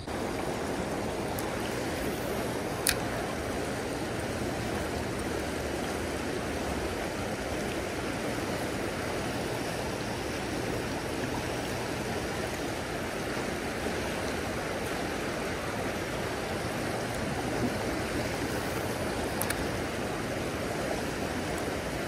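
Creek riffle rushing steadily over rocks, with a single sharp click about three seconds in.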